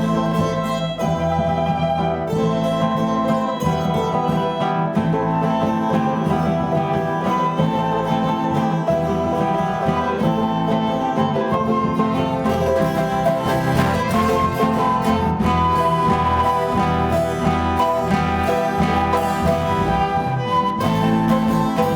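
Acoustic ensemble music led by plucked string instruments, playing steadily.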